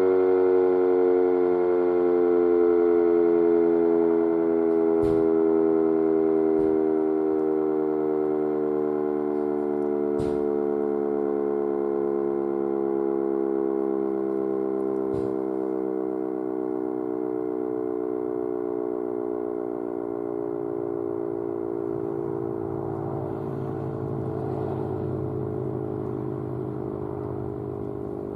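Sentry 5V outdoor warning siren winding down: its tone slides slowly and steadily lower in pitch and fades, with a few faint clicks along the way.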